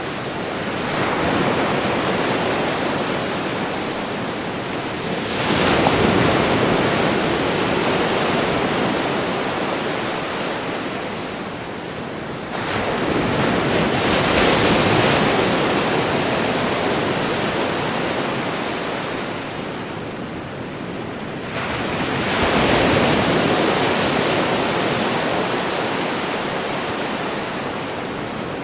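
Ocean waves breaking on a shore. Three waves in a row, one about every eight seconds, each rushing in with a sudden swell and then washing back slowly.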